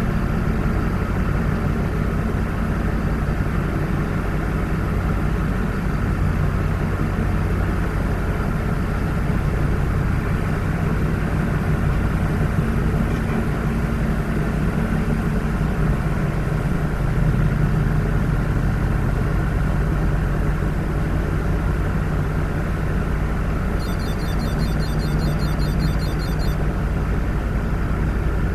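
Car running with a steady low rumble of engine and road noise. A quick run of faint high ticks comes in for a couple of seconds near the end.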